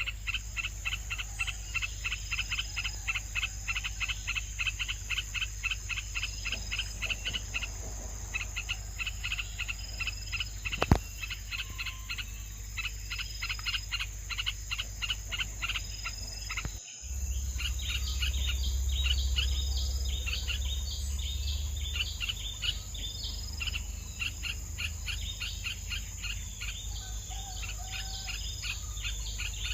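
Insects chirping in a steady pulsing rhythm, about four pulses a second, with a low rumble for a few seconds after a break partway through.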